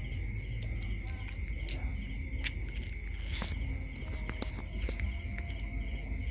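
Night insects trilling steadily at two high pitches, over scattered short clicks and crunches of a dog eating from a metal bowl.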